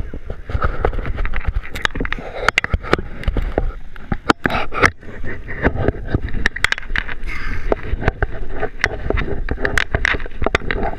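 Close handling noise from a body-worn camera: rubbing, scraping and many irregular knocks and clicks right at the microphone, over a low wind rumble.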